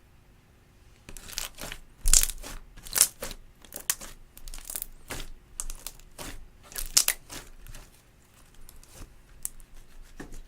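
Glossy slime worked by hand, squeezed and stretched, giving a run of short, sharp, sticky clicks and pops. They start about a second in and thin out to a few faint ones near the end.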